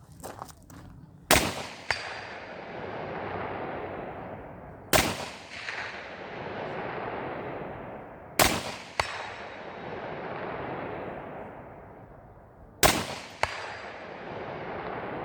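Four single rifle shots fired slowly, about three and a half seconds apart. Each shot is followed by a long rolling echo, with a short, sharper crack about half a second after it.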